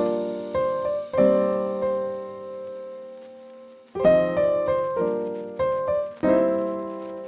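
Outro music: solo piano chords struck a few at a time, each left to ring and fade, with a pause in the middle.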